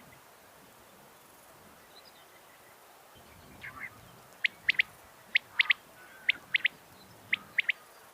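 Quail calling, billed as the female common quail's call used to lure quail in. After a quiet start it gives four short phrases of three sharp, high notes, one note then a quick pair, about one phrase a second.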